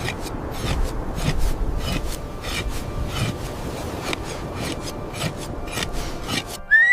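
Repeated rough rasping or scraping strokes, about three a second and irregular, which stop shortly before the end. A high whistling tone then starts.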